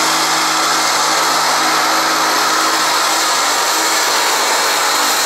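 International super stock pulling tractor's methanol-fuelled, turbocharged engine running loud and steady at full power as it pulls the weight-transfer sled, wheels spinning.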